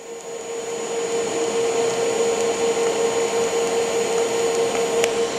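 TIG welding arc burning steadily as a bead is run with stainless filler rod: an even hiss with a steady hum, building up over the first second. The heat has just been turned down from running a little too hot, and the arc now runs a little better.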